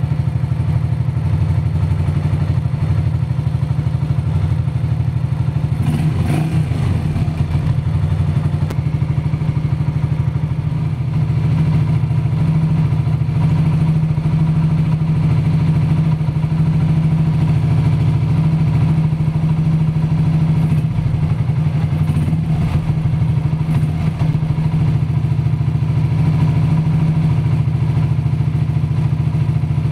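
Motorcycle engine idling steadily, with a brief clatter about six seconds in.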